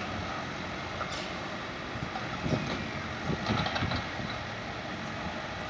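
Heavy construction machinery, tractors working a sewer-laying site, running steadily, with a few short knocks and clatters in the middle.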